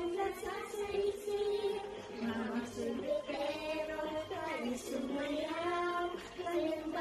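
A young girl singing solo, holding long notes and gliding between pitches.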